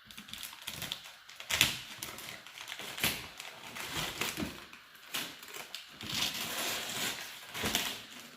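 Gift wrapping paper being torn off and crumpled: irregular rustling and ripping, with sharper tears about a second and a half in, about three seconds in and near the end.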